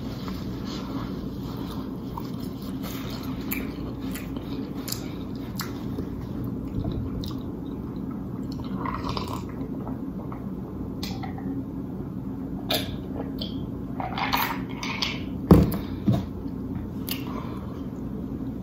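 Close-miked eating sounds: wet chewing and lip smacking, with a drink from an ice-filled glass partway through, over a steady low hum. A few sharper knocks come near the end.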